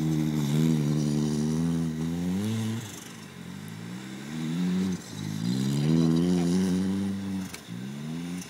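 Ford Escort estate's engine revving hard while the car spins doughnuts on grass. The revs climb and fall away four times, about every two seconds.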